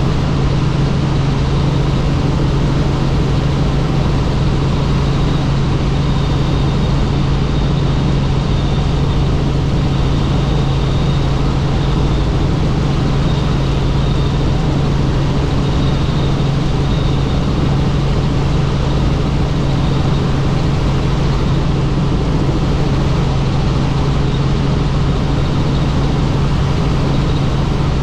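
Helicopter in flight: a loud, steady drone of engine and rotor with a strong low hum, unchanging throughout.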